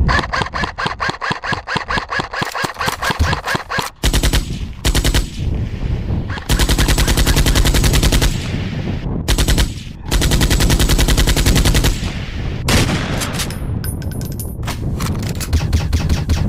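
Machine-gun sound effect from a phone ringtone: several bursts of rapid automatic gunfire with short breaks between them.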